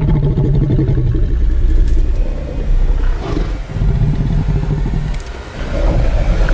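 Film sound effect of a giant wolf growling, low and rough, with a brief dip about five seconds in.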